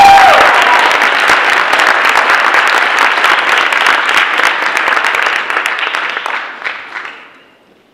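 Audience applauding, a dense patter of many hands clapping that thins out and dies away about seven seconds in.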